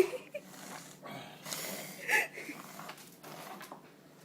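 A baby sniffling and breathing noisily through a stuffy, congested nose: a few short sniffs, the strongest about one and a half to two seconds in.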